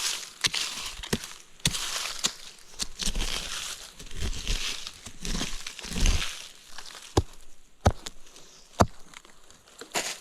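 Dry leaf litter rustling and crunching as it is disturbed, with several sharp twig-like cracks and a few dull thumps.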